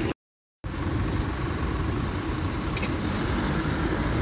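Motor vehicle running with a steady low rumble of engine and road noise, cut off completely for about half a second just after the start.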